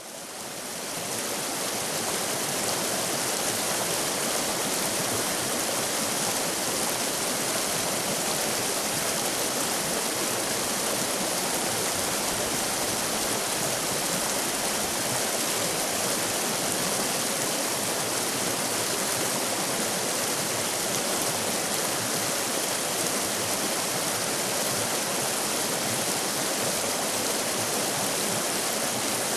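River rapids: fast water rushing steadily over rocks, a dense even rush fading in over the first couple of seconds and then holding steady.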